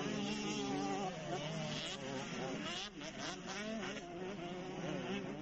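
Motocross bike engines revving up and dropping back as the bikes ride the course: a buzzing that keeps rising and falling in pitch.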